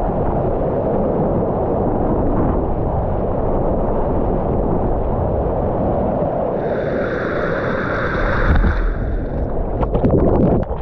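Floodwater churning in the hydraulic below a low-head dam, a loud steady rush heard right at the water's surface. About ten seconds in, the water washes over the microphone in a run of sharp splashes.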